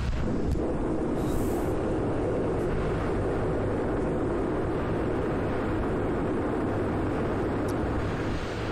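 Steady roar of a river in flood, fast brown water rushing.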